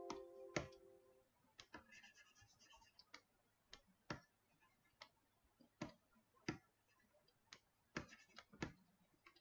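Faint, irregular clicks of a computer mouse, about a dozen spread over several seconds with near silence between them. A held chord of steady tones stops about a second in.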